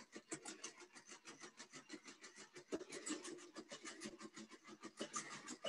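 Quadruped robot dog walking, its feet striking the floor in a rapid, even patter of faint light taps, about eight to ten a second.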